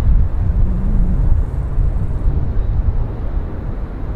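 Low, steady rumble of a jet aircraft's engines as it rolls along the runway, with wind buffeting the microphone.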